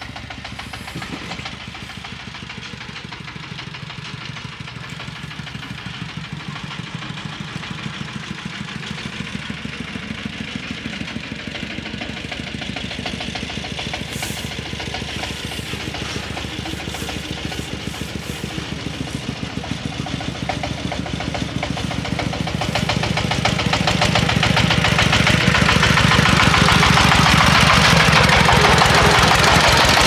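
Diesel engine of a farm machine running with a steady rapid knock, growing clearly louder about three-quarters of the way through.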